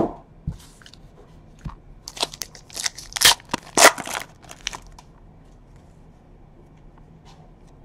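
Foil wrapper of a Panini Certified football card pack torn open and crinkled: a run of sharp crackling rips lasting about two seconds, beginning about two seconds in. A single knock comes right at the start.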